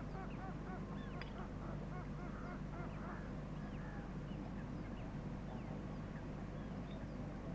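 A flock of waterbirds calling faintly: many short chattering calls, thickest in the first few seconds, over a steady low hum.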